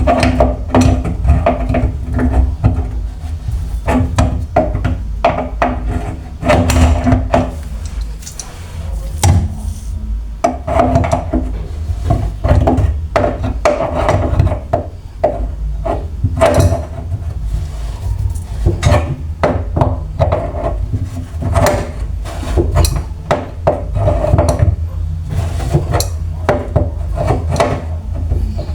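Irregular scraping, rubbing and knocking of hand tools against faucet fittings under a kitchen sink, as a leaking supply hose is worked loose with pliers, over a steady low hum.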